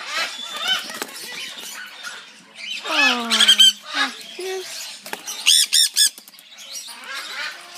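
Baby conures squawking for food: clusters of short, rapid begging calls, the densest run about five and a half seconds in.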